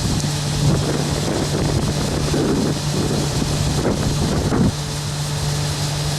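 A vehicle's engine hums steadily, with rough wind and rumble noise on the microphone. The rumbling eases about four and a half seconds in, leaving the steady hum.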